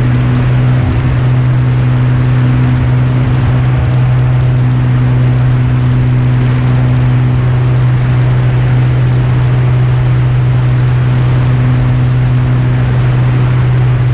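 Piper Turbo Saratoga's turbocharged six-cylinder Lycoming engine and propeller at climb power just after takeoff, a steady low drone. Heard from outside the aircraft, under heavy wind rush over the microphone.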